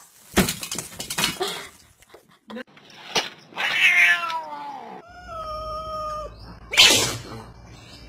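Domestic cat meowing: a long falling meow about halfway through, followed by a steady held call, with knocks and rustling before it and a loud short noisy burst near the end.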